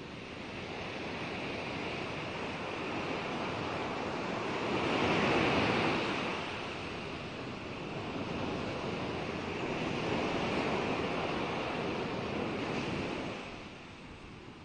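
Ocean surf: a rushing wash of noise that swells and ebbs slowly, loudest about five seconds in and again around ten seconds, easing off near the end.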